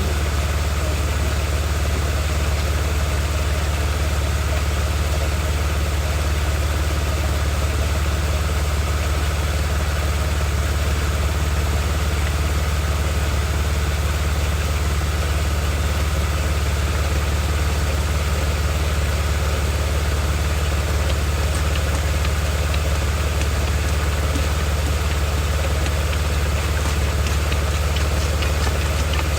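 2003 BMW 330xi's inline-six engine idling steadily, with a constant low hum, left running so the automatic transmission fluid level can be checked hot.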